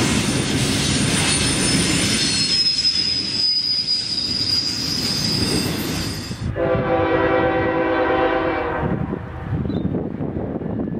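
Double-stack intermodal freight cars rolling past, their wheels giving a high, steady squeal. After a cut, a locomotive horn sounds one steady chord for about two seconds, followed by the low rumble of the approaching train.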